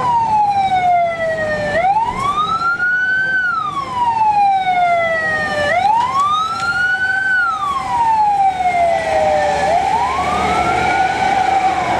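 Police pickup siren in a slow wail, rising and falling about once every four seconds, about three times, over a steady tone.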